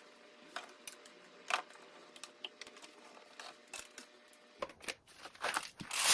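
Scattered light clicks and taps of hands handling the espresso machine's plastic parts, a few at first and busier near the end.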